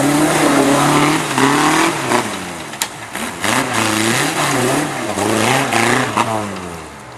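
Off-road trial car's engine revving up and down over and over as it is driven through a section, with a few sharp knocks about three seconds in. It fades near the end.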